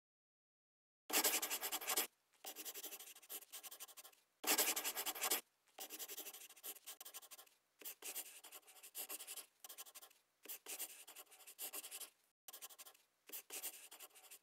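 Handwriting sound effect: scratchy writing strokes in short runs that start and stop. Silent for about the first second, with two louder runs about a second in and about four and a half seconds in.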